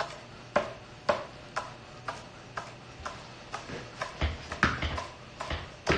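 Chef's knife slicing green onions on a wooden cutting board: sharp knocks of the blade on the board about twice a second, coming faster after about four seconds.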